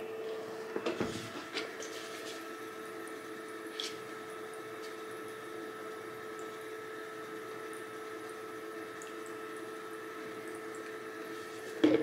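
Urpower ultrasonic essential oil diffuser running: a faint burble of water churned by the mist plate over a steady hum. A few light plastic clicks from handling come in the first four seconds.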